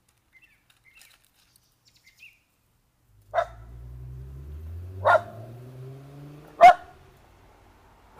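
A dog barking three times, about a second and a half apart, the last bark the loudest. Under the barks runs a low hum that rises steadily in pitch, and there are faint bird chirps before them.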